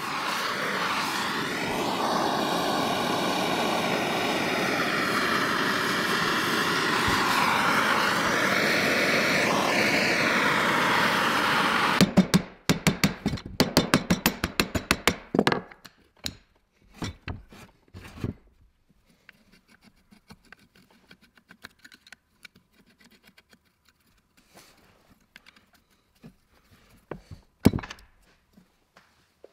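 Handheld gas torch flame hissing steadily as it heats the cast-iron end bell of a 1914 F. Bissell electric motor; it cuts off about twelve seconds in. A quick run of light metal taps and clicks follows, then scattered small clicks and scrapes, with one sharper click near the end, as the perforated end cover is worked loose.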